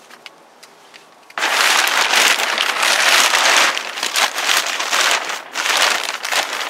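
Plastic greenhouse sheeting rustling and crinkling close to the microphone. It starts suddenly about a second and a half in and goes on loudly.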